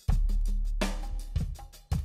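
Instrumental background music with a drum-kit beat: a heavy bass hit with a held deep note at the start, then sharp snare-like hits.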